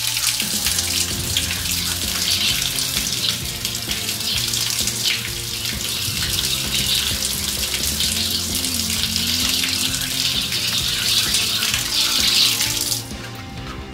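A steady stream of water falling from a wall spout and splashing onto a tiled floor, running toward a freshly cleared floor drain. It stops suddenly about a second before the end.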